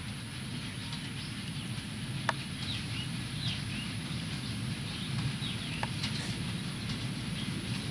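Low, steady rumble of an approaching WDM-3A diesel locomotive and its train, slowly growing louder, with birds chirping over it in short calls.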